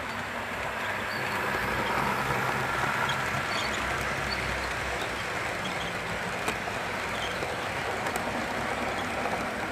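HO scale model freight train rolling past on the track: a steady rumble of wheels and wagons that grows a little louder about a second in, with a few faint clicks as the wheels cross rail joints.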